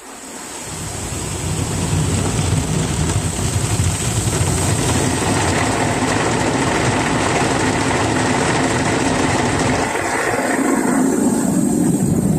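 Automatic car wash machine spraying water onto a Honda N-BOX, heard from inside the cabin: the spray comes on suddenly as a loud, steady rush with a low rumble, and about ten seconds in it turns lower and duller.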